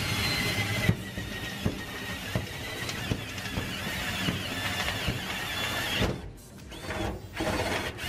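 Cordless drill driving a step drill bit through a sheet-metal duct, the bit squealing as it cuts; the drilling eases off about six seconds in. It is cutting a test-port hole for a temperature probe.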